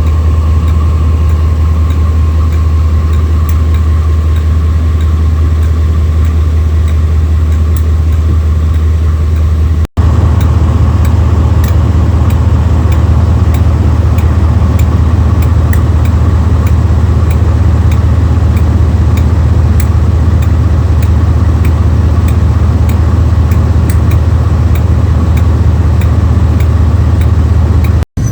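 Diesel-electric locomotive engine idling with a steady low rumble. It drops out for an instant about ten seconds in, then runs on slightly louder.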